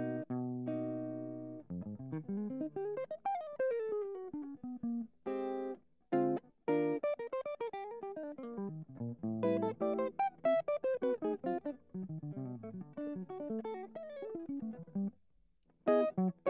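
Background music: a plucked guitar playing quick runs of notes that climb and fall. There are short breaks about six seconds in and again just before the end.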